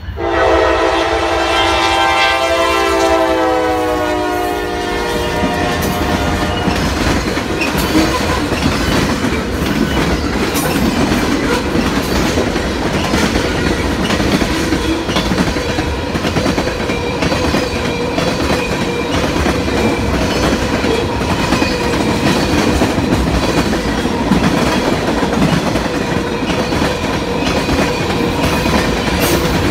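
Diesel freight train passing close by: the lead locomotive's air horn sounds for about six seconds, dropping in pitch as it goes by, then cuts off. The locomotives' low engine rumble gives way to a long train of tank cars rolling past with a steady clickety-clack of wheels over rail joints.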